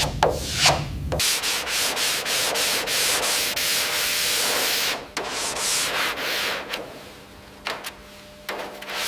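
Sanding by hand. Back-and-forth rubbing strokes, then a steady stretch of rubbing with fast ticks, easing off after about six seconds.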